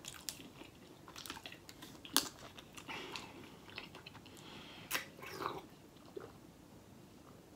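Close-miked drinking from a thin plastic water bottle: scattered sharp clicks and crinkles of the bottle being handled, the loudest about two seconds in. Near the end the bottle is tipped up and he drinks from it.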